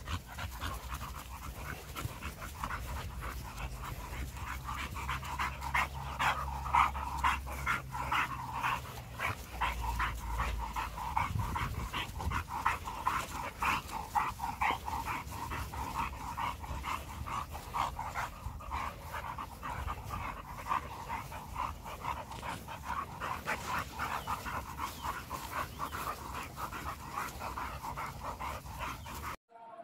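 Bully-breed dog panting rapidly and steadily.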